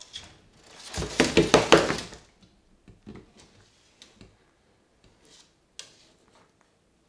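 Claws and body of an Argus monitor lizard scrabbling and knocking on a hard bathtub surface as it moves with a hamster held in its jaws. A dense flurry of scratches and knocks starts about a second in and lasts about a second, followed by a few scattered light ticks and scrapes.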